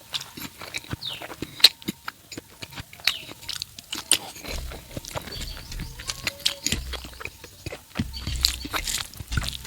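Close-up eating sounds from a person eating pork curry with rice: wet chewing and lip smacks in an irregular run of short clicks.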